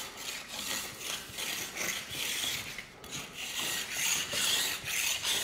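A metal file clipped into an 88-degree edge guide rasps along a ski's steel edge in repeated pulled strokes, sharpening the edge.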